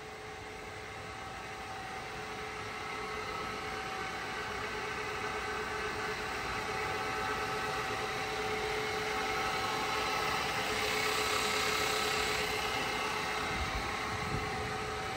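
Correa F2UE universal milling machine running with its spindle at top speed, 1800 RPM: a steady hum with a few steady tones, growing gradually louder and easing slightly near the end. The spindle runs with no extra noise even at high RPM.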